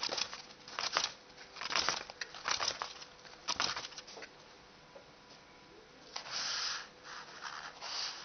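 Scratchy scraping and rustling as a nail is spun by hand in a small cardboard box, in short bursts about a second apart, then a longer stretch about six seconds in.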